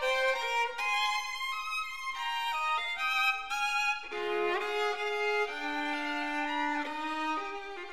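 Background music: a violin playing a melody of stepped notes, with a few slides between notes and lower held notes joining about four seconds in.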